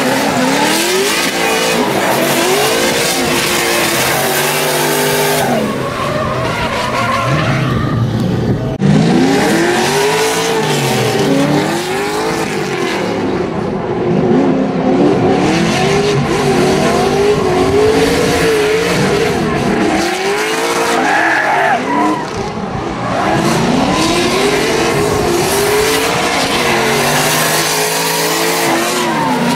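Drift cars sliding sideways with their tyres squealing, engines revving hard. The engine pitch swings up and down again and again as the throttle is worked through the slide.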